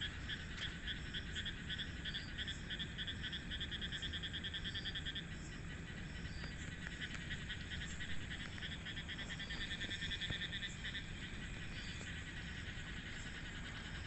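Night chorus of frogs calling: fast pulsed trills that run for a few seconds at a time, over short higher notes repeated about twice a second.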